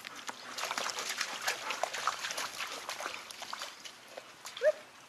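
Black Labrador retriever giving one short whine about four and a half seconds in, the loudest sound here, over scattered light scuffs and splashes of the dogs moving at the water's edge.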